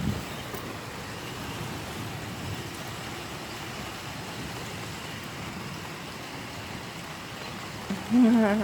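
Steady hiss of a rain shower as it arrives, with a brief voice near the end.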